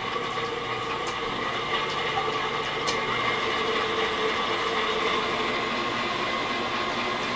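Electric stand mixer running steadily at speed, its motor whining and its whisk beating egg whites, with a couple of light clicks in the first few seconds.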